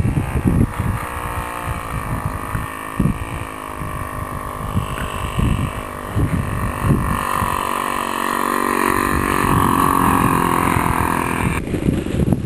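Thunder Tiger 80 four-stroke nitro engine of an RC P-47 warbird model running, a steady pitched engine note that rises gently in pitch, with wind gusting on the microphone underneath. The engine note cuts off abruptly near the end.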